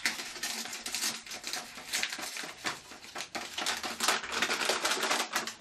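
Flour bag crinkling and rustling with rapid, irregular crackles as flour is poured from it into a cup.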